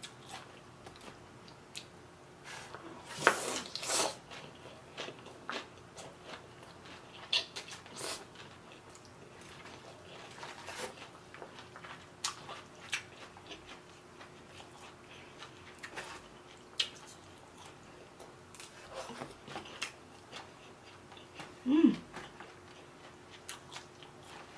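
Close-miked chewing of a mouthful of noodles, bean sprouts and greens, with scattered wet lip smacks and mouth clicks. A louder cluster of bites comes about three to four seconds in, and a short low hum sounds near the end.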